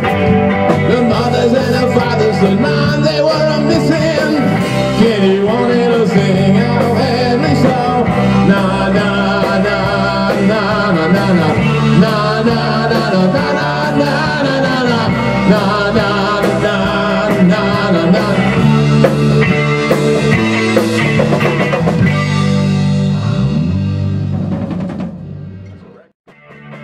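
A rock band playing live on electric guitar, electric bass and a Tama drum kit. The song dies away about 25 seconds in, leaving a brief lull just before the end.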